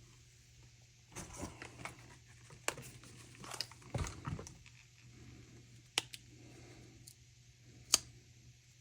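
Small metal objects, likely folding knives, being handled: rustling and scattered light clicks, with a sharp click about six seconds in and a louder one near the end. A faint steady hum sits underneath.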